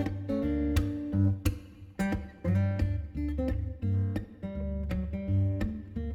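Background music: a song with strummed acoustic guitar over a bass line, with a regular beat of sharp strokes.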